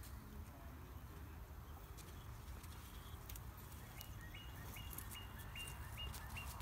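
Quiet outdoor ambience with a low wind rumble on the microphone. In the second half, a faint run of short high chirps, about two a second, from a small bird.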